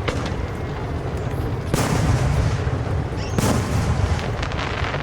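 Fireworks aerial shells bursting: three sharp booms about a second and a half apart, over a steady low rumble and crackle of other bursts.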